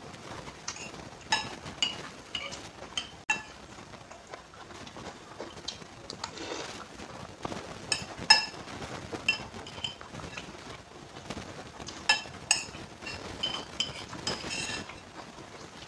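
Metal cutlery clinking and tapping against a dish while eating noodles, about a dozen sharp ringing taps at irregular intervals.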